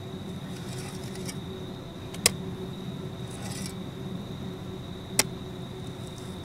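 Steady low rumble of a car's cabin on the road, with a faint, thin, steady high whine over it. Two sharp clicks stand out, about three seconds apart.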